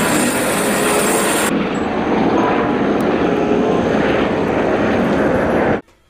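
Helicopter running: a loud, steady whir of turbine and rotor. The highest hiss drops away about a second and a half in, and the sound cuts off abruptly near the end.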